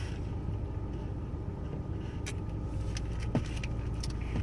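Steady low hum inside a car, with a few light clicks and taps.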